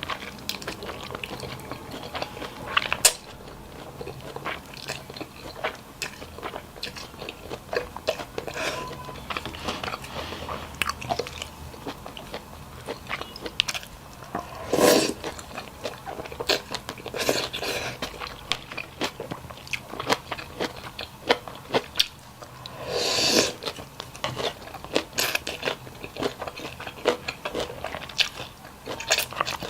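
Close-miked eating: chewing and crunching with many quick wet clicks, and a few louder noisy bursts, about halfway and about three quarters of the way through.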